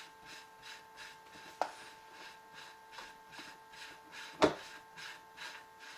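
Thread protector being unscrewed by hand from a rifle barrel's threaded muzzle: soft rubbing strokes, about two or three a second. A light click comes about a second and a half in, and a sharper knock about four and a half seconds in.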